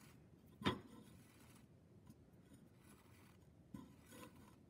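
Quiet handling sounds of yarn being drawn back through a hole in a ceramic weaving plate. There is one sharp knock a little under a second in, and a few soft rustles near the end.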